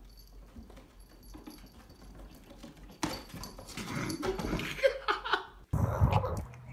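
A cat's claws scratching and scrabbling on a carpeted cat-tree post and shelf, faint at first and louder from about three seconds in. Near the end a pug snuffles and snorts with its face in broccoli.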